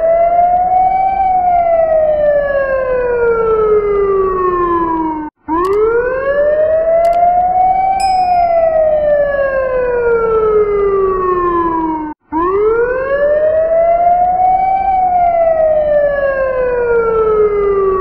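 Emergency vehicle siren wailing. Each cycle rises over about a second, then falls slowly over about four seconds, and the pattern repeats three times, each cycle cut off abruptly before the next begins.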